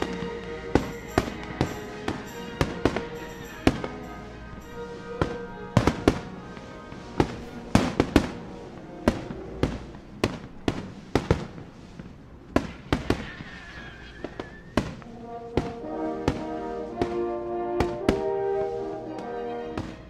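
Fireworks going off: a fast, irregular series of sharp bangs and cracks, over music with held notes that comes forward in the last few seconds.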